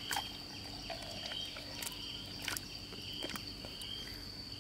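Insects trilling steadily in a continuous high drone, with a second insect pulsing on and off. Over it come a few soft wet clicks and squelches as a plastic toy locomotive is pushed through liquid mud.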